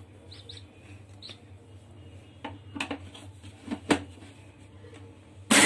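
Kitchen handling sounds as a steel mixer-grinder jar and its lid are loaded with soaked urad dal: a few sharp clicks and knocks over a low steady hum, with some faint high chirps. Near the end comes a short, loud rush of noise that cuts off suddenly.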